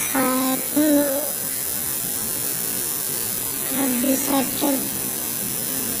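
Electric tattoo machine buzzing steadily as it works, with a man's voice speaking briefly over it near the start and again about four seconds in.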